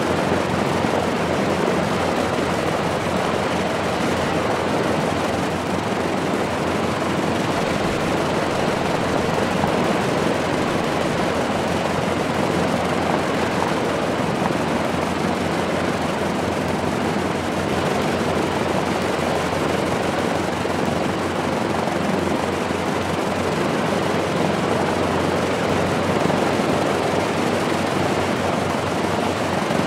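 Lockheed P-38F Lightning's liquid-cooled Allison V-1710 V-12 engines running steadily during a ground run, a loud, even engine roar with fast low pulsing and no change in pitch.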